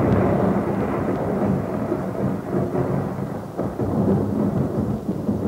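Rumbling thunder sound effect, a long noisy roll that slowly fades, used as the intro to a heavy metal demo track.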